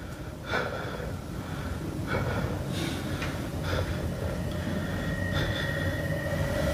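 Low, muffled rumbling and scattered soft knocks from a phone being carried and handled, picked up by its own microphone. The rumble grows steadily louder, and a faint steady high whine comes in about halfway through.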